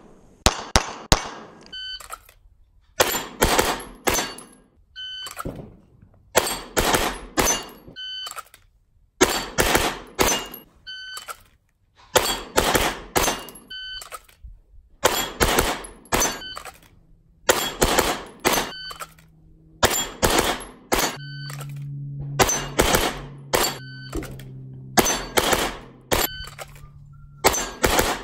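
Glock 9mm pistol firing in rapid strings of several shots, each string separated by a pause of a second or two.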